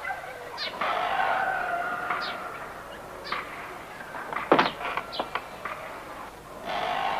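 Heavy wooden barn doors being pushed shut, with a sharp knock about four and a half seconds in. Around it are repeated short high chirps and long drawn-out tones, the first lasting almost two seconds.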